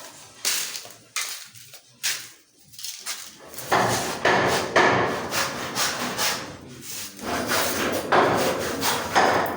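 Hammering and knocking on wood: a few scattered knocks, then from about four seconds in a louder, busier run of blows and scraping.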